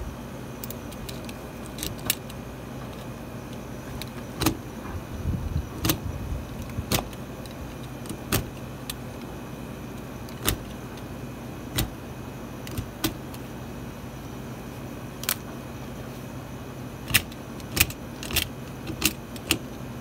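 A screwdriver clicking and scraping against the metal fitting on the side of a 50-litre electric water heater, in short, sharp, irregular clicks over a steady low hum.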